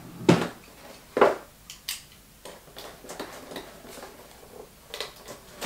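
Tape along the edge of a cardboard box being cut open with a small hand tool: a few sharp clicks and scrapes, the loudest about a second in, with lighter scratching between them.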